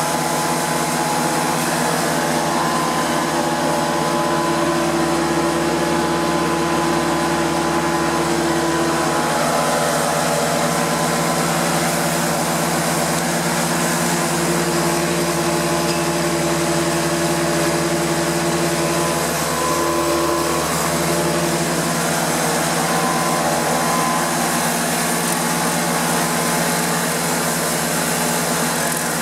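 Prochem Performer 405 truck-mount carpet cleaning unit running steadily, driven by its Nissan A15 engine: a constant engine drone with held tones that do not change.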